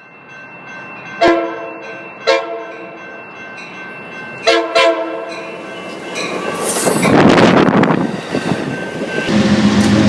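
Train horn sounding four blasts, the third one short, followed a couple of seconds later by the loud rush of a train passing close by. A steady pitched drone from the train continues near the end.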